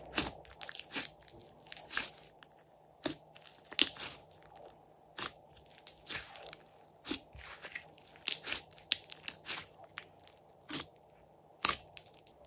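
Glossy slime being kneaded and pressed by hand, giving off irregular sharp pops and crackles, a couple of them much louder than the rest.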